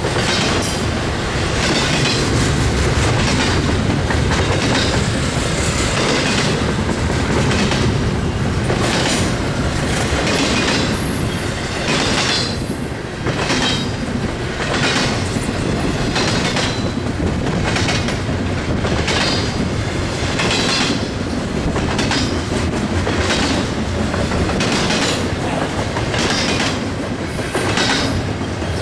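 Freight train cars rolling past at speed, their wheels clacking over the rail joints in a steady, repeating rhythm over a continuous rumble.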